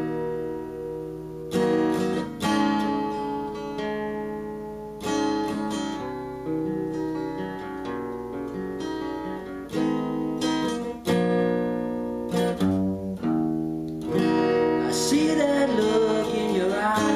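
Acoustic guitar played with a pick: chords struck every second or so and left to ring, a slow intro. A man's singing voice comes in near the end.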